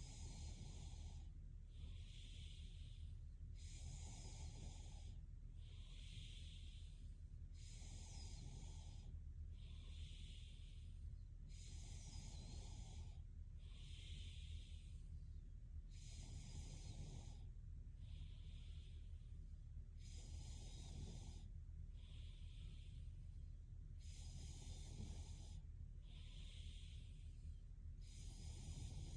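A sleeping girl breathing slowly and evenly, faint and close to the microphone: a soft, hissy breath in and a breath out, each about a second long, one full breath about every four seconds. A steady low hum lies underneath.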